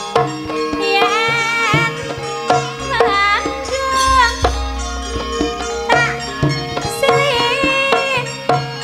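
Campursari music: hand-drum strokes over sustained pitched tones, with a wavering, sliding melody line rising and falling in short phrases.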